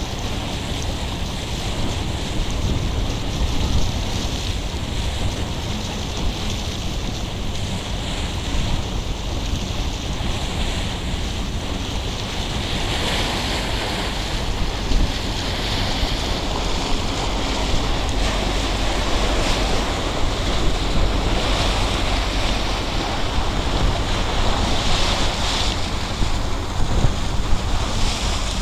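Sea water rushing and splashing along the hull of the Regal Lady pleasure boat under way, with wind buffeting the microphone and a steady low drone beneath. The hiss of the splashing surges louder now and then in the second half.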